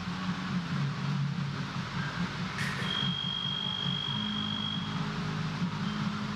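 Electric fencing scoring machine sounding its steady high tone for about two seconds, the signal of a registered hit, after a sharp click. A steady low hum runs underneath.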